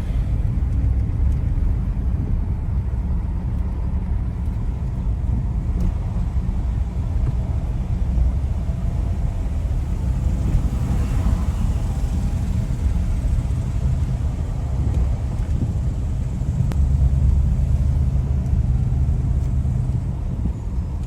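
Steady low rumble of a motor vehicle, with the level shifting slightly but never stopping.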